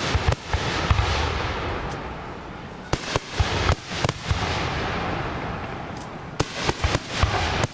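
Aerial firework shells bursting: sharp bangs near the start, a few more around the middle and a quick run of them near the end, with a hissing, crackling wash trailing off between the bursts.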